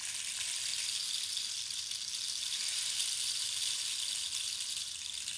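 Rain stick made from a dried cactus skeleton, held upright so its filling of small beads or beans trickles down past the thorns pushed inside it: a steady, even hiss like falling rain.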